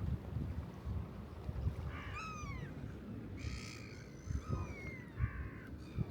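Birds calling several times: a drawn-out cry that falls in pitch about two seconds in, then a few shorter, harsh calls.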